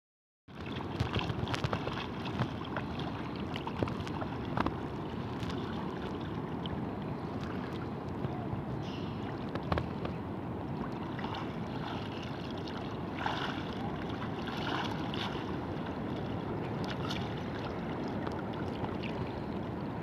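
Choppy sea water sloshing and splashing close to the microphone over a steady low rumble, with scattered sharp splashes.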